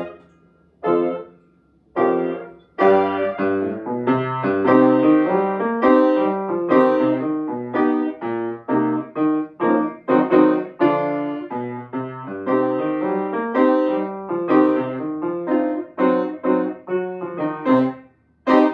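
Grand piano played solo. Two separate chords ring out with short silences after them, then comes a busy passage of short, detached notes and chords, and a last struck chord near the end.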